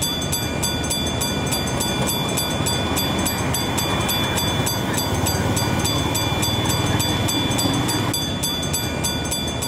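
Miniature ride-on train running along its track, a steady rumble throughout.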